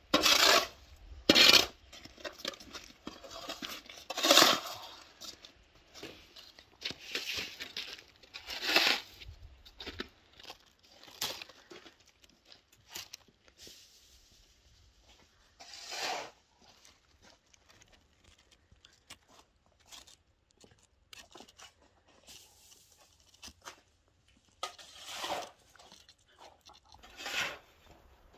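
Snow shovel scraping and pushing wet snow across concrete paving tiles in short, sharp strokes. The strokes come every second or two at first, then only now and then after about ten seconds.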